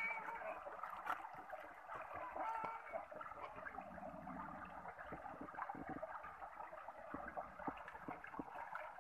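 Shallow stream water running and gurgling over rocks around wading feet, with a few faint clicks and small splashes in the second half.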